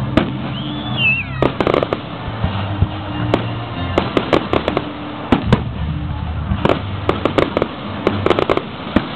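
Fireworks display: shells and crackling effects go off in rapid, irregular bangs and pops. A brief wavering, falling whistle comes about a second in.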